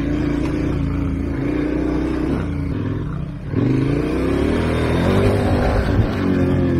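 Adventure motorcycle's twin-cylinder engine running under way on a dirt trail. The throttle eases off around three seconds in, then opens again and the engine note rises as the bike accelerates.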